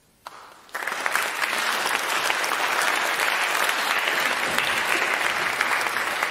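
Audience applauding: the clapping breaks out within the first second and holds steady.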